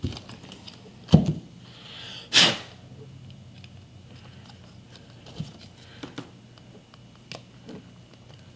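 Handling noise from fitting a plastic trolling-motor receptacle plate with a screwdriver. A knock comes about a second in and a short hiss a second later, then scattered light clicks.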